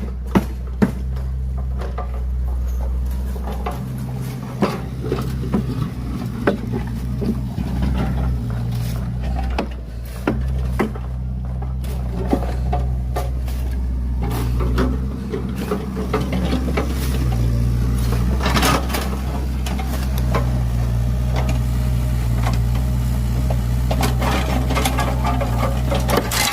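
Excavator engine running steadily, its note shifting a little now and then, with scattered knocks and scrapes from the bucket digging soil.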